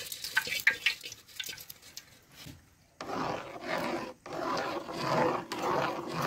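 Close-miked food sounds: scattered light clicks and scrapes, a brief lull just before halfway, then a dense crackling rustle that starts abruptly and has a short break about four seconds in.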